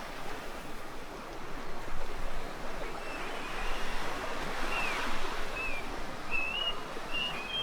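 A steady rushing noise like surf. From about three seconds in, a bird calls with short, repeated chirps.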